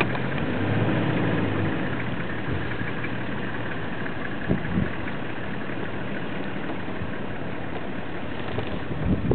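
Safari vehicle's engine idling steadily, with a couple of brief knocks about four and a half seconds in.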